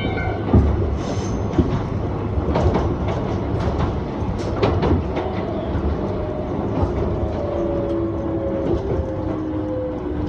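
Former Tokyu electric railcar of the Iga Railway on the move: a steady low rumble with sharp clicks of the wheels over rail joints. From about six seconds in, a whine slowly falls in pitch.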